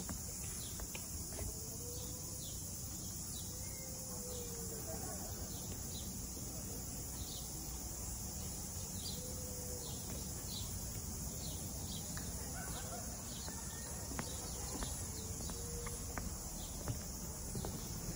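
Outdoor forest ambience: an insect chirping in a regular rhythm, a little faster than once a second, over a steady high hiss.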